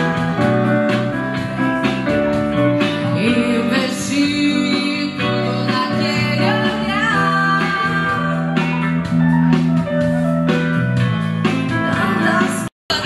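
Live rock band playing: a woman singing over electric guitar and a Nord Stage keyboard. The sound cuts out for an instant near the end.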